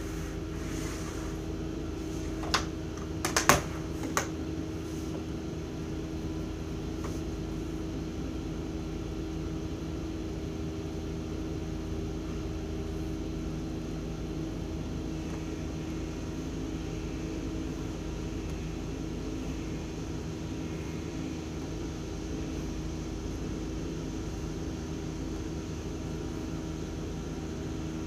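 Steady machine hum with several steady tones. Between about two and a half and four seconds in come a few sharp taps, as drafting tools are laid on the table.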